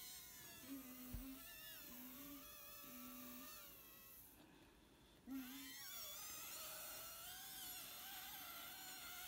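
A little girl's high voice held in one long, wavering note, faint, breaking off briefly about four seconds in and then drawn out again without a pause.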